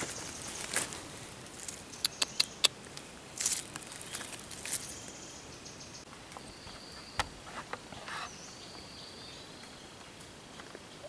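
Scattered sharp clicks and snaps over a quiet outdoor background, with a quick run of four about two seconds in and a few single ones later, like twigs or dry leaves crackling underfoot or in the hands. Faint, thin high tones come in around the middle, like distant insects or birds.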